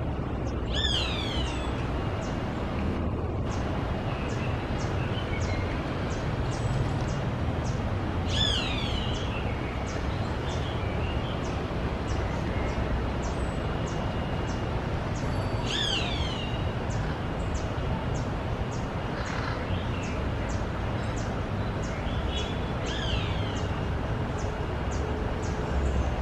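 A bird's loud, falling call with a ringing, overtone-rich quality, given four times at even spacing about seven and a half seconds apart. Under it runs a steady low rumble and a faint, fast, regular ticking.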